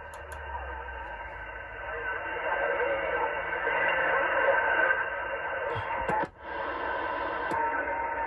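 Uniden Grant CB radio's speaker putting out long-distance skip: distant sideband voices mixed with static and hiss. A few clicks and a brief dropout come about six seconds in, as the set is retuned.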